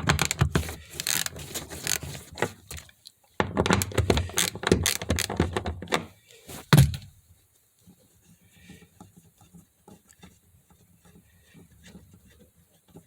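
Ratchet wrench clicking in two quick runs as it backs out the 10 mm bolts on a fuel pressure regulator access plate, followed by a single loud thunk about seven seconds in, then faint small handling sounds.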